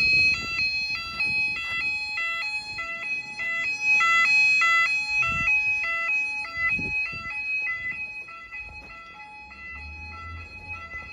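Building fire alarm sounder wailing in a two-tone pattern, a higher and a lower note alternating about twice a second, fading somewhat over the last few seconds. The children take it to have been set off by aerosol spray.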